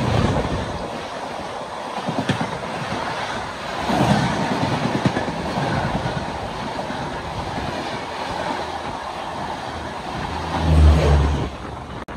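An Indian Railways passenger train running past on the adjacent track, its coach wheels clattering over the rail joints in a continuous rumble. A brief, louder low hum comes about eleven seconds in.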